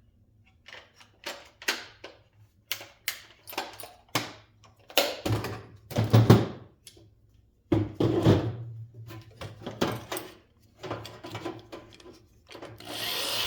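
Irregular clicks, knocks and a few heavier thuds of tools and metal parts being handled on a workbench.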